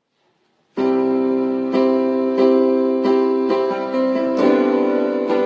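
Music: a keyboard intro, starting about a second in and playing sustained chords, with a new chord struck every half second or so.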